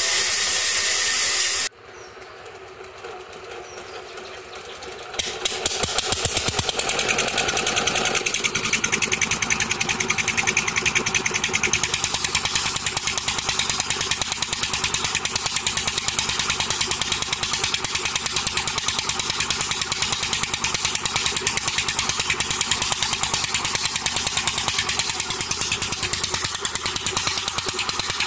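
Small red stationary engine running steadily with a rapid, even knocking beat as it drives the sawmill's long flat belt. It comes in abruptly about five seconds in, after a brief loud hiss that cuts off suddenly and a quieter stretch.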